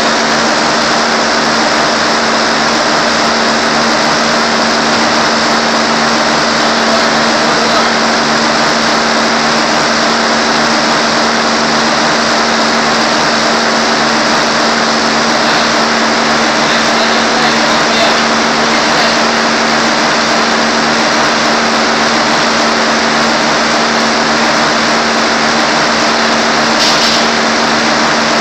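Motorized skating treadmill running steadily: a constant motor hum at one pitch under a loud, even hiss from the moving belt.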